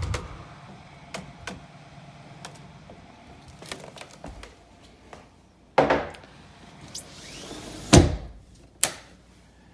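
A mug of boiling water flung into −30 °C air: a short, high hissing whoosh about seven seconds in as the water flashes to vapor. It is set among a few loud knocks and thumps near the middle and end.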